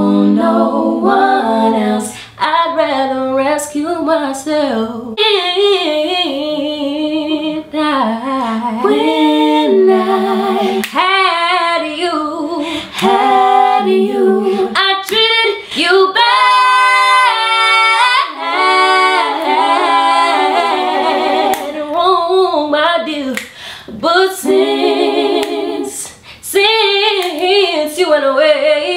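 Young women singing a cappella, female voices with no instruments, with a high, wavering held note about halfway through.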